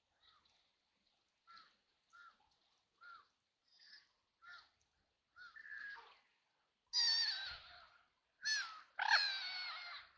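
Ducks quacking: a string of short, soft calls about every half second, then louder, harsher quacks from about seven seconds in.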